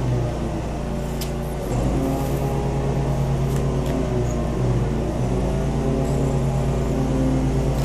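A steady low machine hum with a few faint clicks from playing cards being handled.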